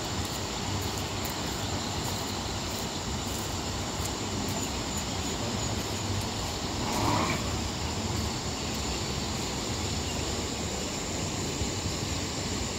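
Steady rushing noise of the swollen Sutlej river in spate, briefly louder about seven seconds in.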